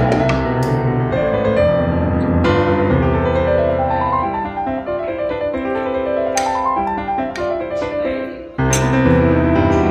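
Background piano music; it drops away briefly about two-thirds of the way through, then comes back in.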